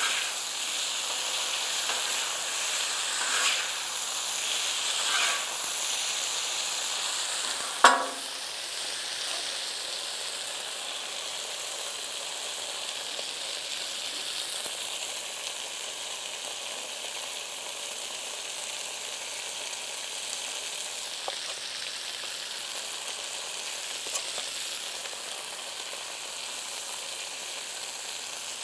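Sliced potatoes and onions sizzling in butter on a hot flat-top griddle, with a metal spatula scraping and turning them over the first several seconds. A single sharp knock comes about eight seconds in, and the sizzle then carries on steadily as hush puppy batter is spooned onto the griddle.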